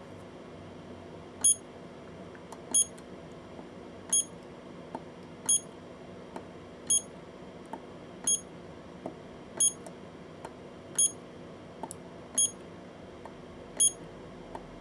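Cheap battery spot welder beeping: short high beeps evenly repeating about every 1.4 seconds, ten in all, with faint clicks between them.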